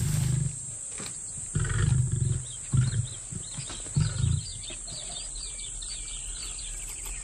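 Lion giving a series of short, deep calls, four in about four seconds, over a steady high insect hiss.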